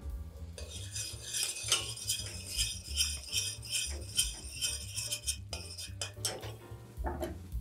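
Background music with a steady beat and a jingling rhythm that stops about five seconds in, with a few clinks of a utensil against a pan as garlic is added to a tomato sauce.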